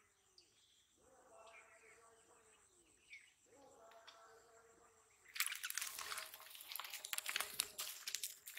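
Dense rustling and crackling in dry grass, starting suddenly about five seconds in, as a freshly caught fish is handled on the bank.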